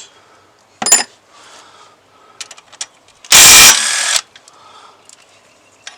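A rattle gun (impact wrench) fires in one short, loud burst about three seconds in, undoing a cylinder head bolt. Earlier, about a second in, there is a sharp metallic clink of tools.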